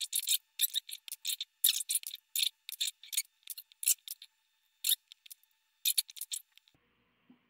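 A tiny flathead screwdriver turning the adjustment screw of a blue multi-turn trimmer potentiometer on a step-down converter board, setting its output voltage lower: a quick, uneven run of short, sharp, scratchy clicks, about two or three a second, that stops near the end.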